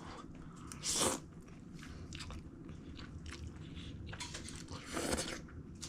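A person chewing and biting into a mouthful of pasta, with small mouth clicks and two short, louder, noisy sounds about a second in and near the end. The eater judges the pasta a little undercooked.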